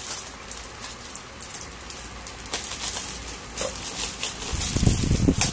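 Clear plastic wrapping of a rolled yoga mat rustling and crinkling as it is handled and pulled open, becoming louder and denser near the end.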